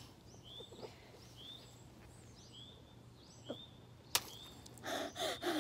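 A bird calling in short, repeated chirps about once a second, then a sharp pop about four seconds in as a water balloon bursts over a head, followed by a short rush of noise near the end.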